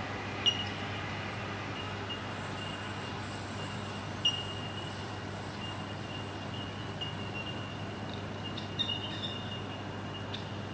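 Sydney Trains Waratah electric train faint in the distance as it moves away, with a thin steady high wheel squeal from the curve and a low hum. Three short high chirps stand out: one about half a second in, one about four seconds in, one near nine seconds.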